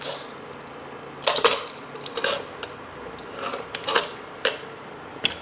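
Aluminium inner-lid pressure cooker being opened: the lid and its handle are twisted and worked free of the rim, giving a string of separate metallic clicks and clinks.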